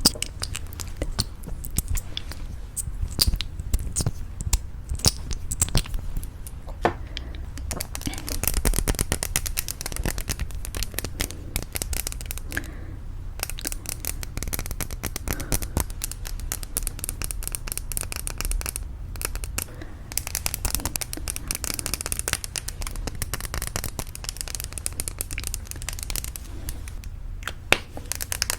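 Fingernails tapping and scratching on lipstick cases. Scattered sharp taps give way to stretches of fast, dense scratching, twice.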